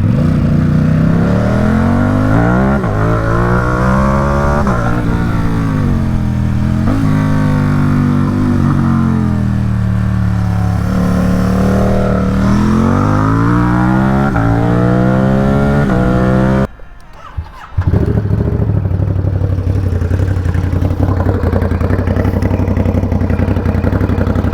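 Ducati Supersport 950 S's 937 cc L-twin through a Competition Werkes exhaust, accelerating hard with the pitch climbing and dropping back again and again as it revs and shifts. About two-thirds of the way through the sound cuts out for about a second, then the engine runs on more steadily.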